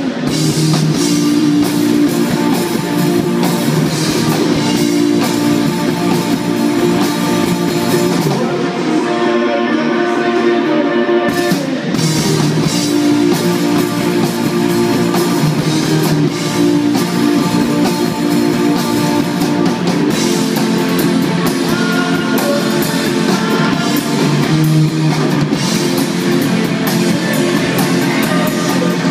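Live rock band playing loudly through stage amplifiers: electric guitars over a drum kit. The drums drop out about eight seconds in, leaving the guitars alone, and come back in around twelve seconds.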